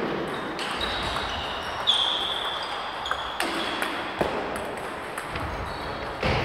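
A few sharp, irregular clicks of celluloid table tennis balls striking tables and bats, each with a short high ring, echoing in a large sports hall.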